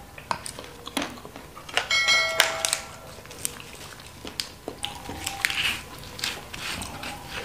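Crisp curly lettuce being torn and handled, giving scattered clicks and rustles, with a short squeaky, ringing burst about two seconds in as the loudest part. Near the end, softer wet, sticky sounds as fingers pick through chicken feet coated in chili sauce.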